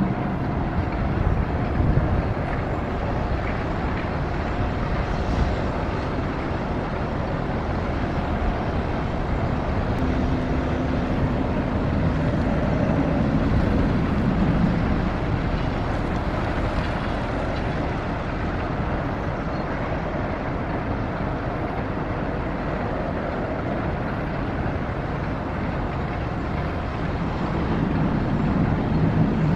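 Steady mechanical noise of a silo's ship-loading plant as granular bulk cargo runs down a telescopic loading spout into the hold of an inland cargo ship. A low hum swells for a few seconds around the middle.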